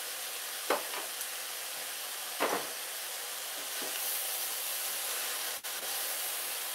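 Shredded white cabbage and okra sizzling with a steady faint hiss in a stainless steel pot, with a few short clacks and, in the second half, a wooden spoon stirring and scraping through the vegetables.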